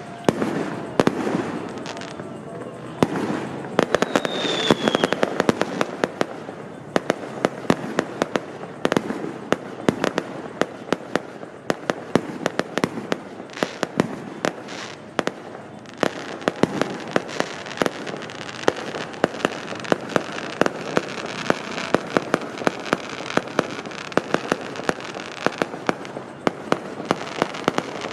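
Fireworks and firecrackers going off in a dense, rapid string of bangs and crackles, with a short falling whistle about four seconds in.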